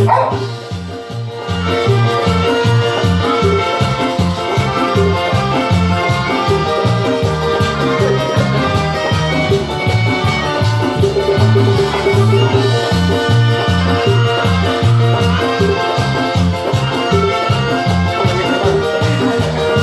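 Instrumental Latin dance music with a steady beat and no singing; the music dips briefly just after the start.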